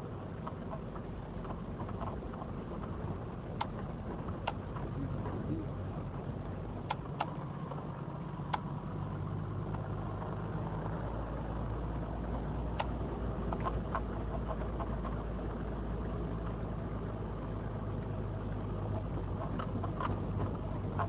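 Vehicle engine and cabin noise while driving slowly over a rough sandy track. There is a steady low drone, scattered sharp clicks and rattles, and the engine note deepens a little about nine seconds in.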